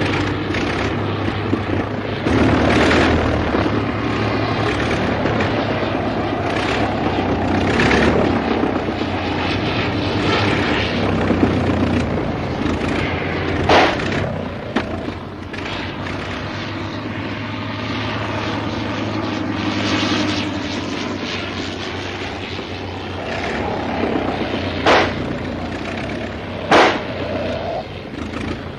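Propeller aircraft engine droning steadily in flight, broken by a few short sharp bangs about 14, 25 and 27 seconds in.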